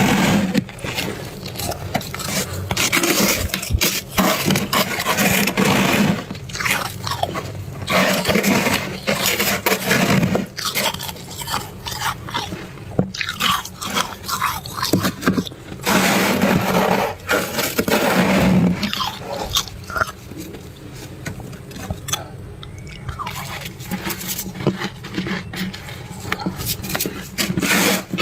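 Fluffy freezer frost being scraped up and bitten and chewed close to the microphone: a long run of irregular crunches.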